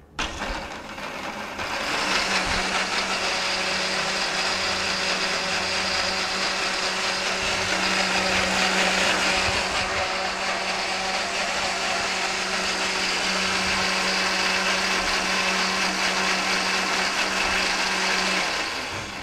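Countertop blender running on a liquid load of sautéed spinach and coconut milk, puréeing it into a green sauce. It starts just after the beginning, comes up to speed over about two seconds, then runs steadily at one pitch before winding down shortly before the end.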